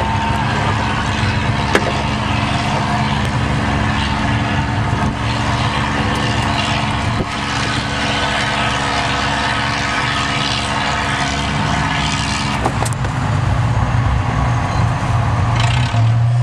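Farm tractor's diesel engine working under heavy steady load as it drags a weighted pulling sled, its pitch holding level throughout.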